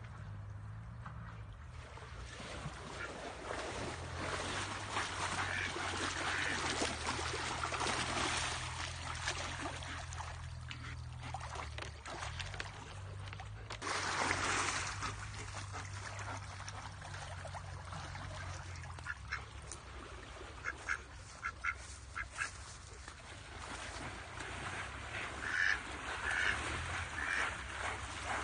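Ducks quacking in short runs of calls in the second half, over water splashing and sloshing as a dog swims after them through a stream, with one louder splash about halfway through.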